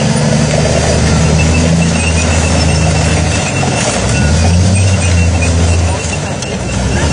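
M48 tank's engine running hard with a deep, steady note as the tank drives over a car and pulls away, the note shifting about halfway through.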